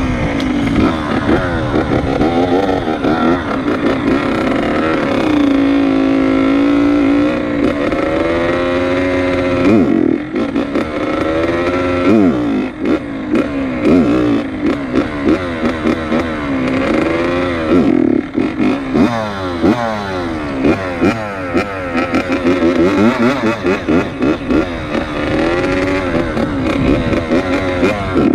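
Dirt bike engine running under a rider, revving up and easing off again and again as the throttle is worked. Its note climbs as it accelerates and drops when the throttle closes, many times over.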